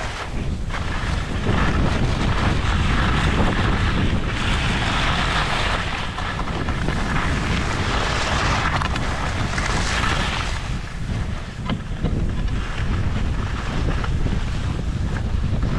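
Wind buffeting the microphone while skiing downhill, with skis hissing and scraping over hard snow in long swells of a few seconds each.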